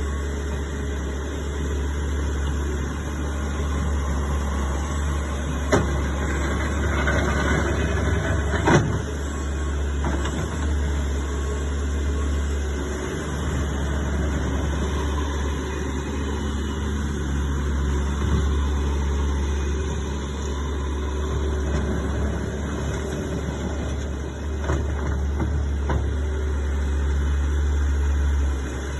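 2015 Bobcat S590 skid steer loader's diesel engine idling steadily, with two short knocks partway through.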